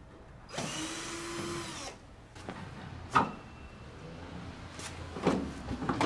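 Cordless drill-driver running for about a second, backing a screw out of the sheet-metal side panel of an outdoor air-conditioner unit. A sharp knock follows, then more knocks near the end.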